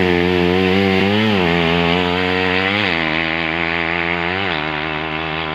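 Small engine running fast and buzzy, blipped up in pitch in four short revs about a second and a half apart, easing slightly quieter toward the end.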